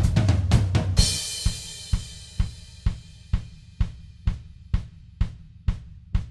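Background music: the full band cuts off with a cymbal crash about a second in, leaving a drum beat alone, pulsing steadily at about two beats a second.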